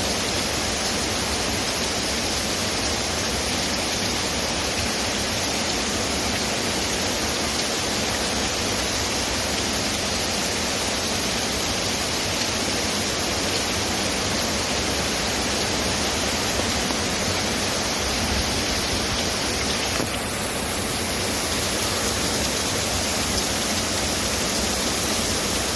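Heavy rain falling in a steady, even downpour. The sound changes slightly in tone about twenty seconds in.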